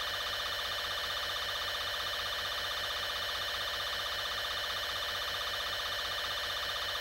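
A steady electronic warning tone held at one pitch, without rising or falling.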